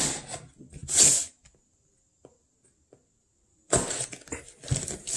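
Packing tape on a cardboard mailing box being slit and pulled loose, with cardboard scraping. Two short rasps come in the first second and a half, then a pause of about two seconds, then a longer run of tearing and scraping.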